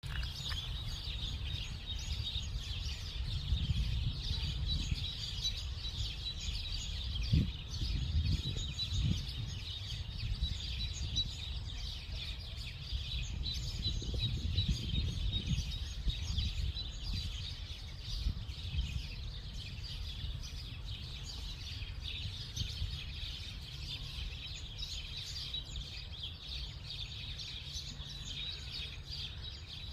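Dense, continuous chirping of many small birds, with a low rumble of wind or handling on the microphone underneath.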